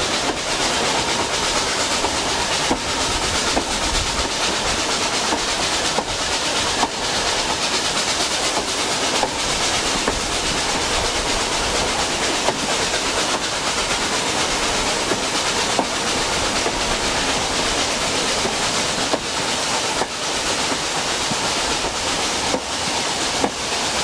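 Narrow-gauge steam train's coaches running along the line: a steady rush of wheel and rail noise, with irregular clicks as the wheels pass over rail joints.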